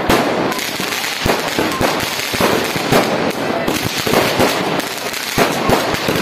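Massed firework rockets going off together: a continuous hissing rush of launches with many sharp bangs and crackles, coming irregularly and several a second, from bursts overhead.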